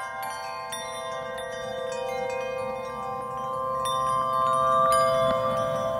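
Background music of sustained, ringing chime-like tones layered over each other, with scattered short high notes. It grows louder about two-thirds of the way through.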